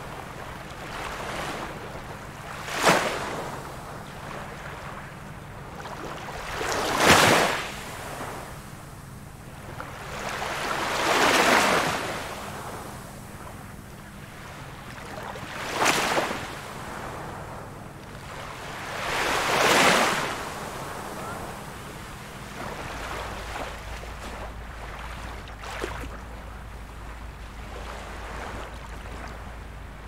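Small ocean waves breaking on a beach: five surges in about twenty seconds. Some are a short sharp crash, others a longer swelling wash. After that comes a quieter steady wash of surf with a low rumble underneath.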